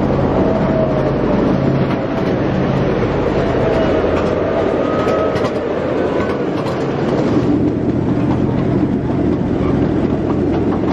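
Miniature ride-on train running steadily along its narrow-gauge track, the cars' wheels rumbling and clicking over the rail joints.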